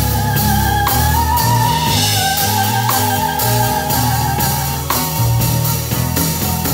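Live band music: a drum kit with cymbals keeps a steady beat over a deep bass line, with a held, wavering lead melody on top.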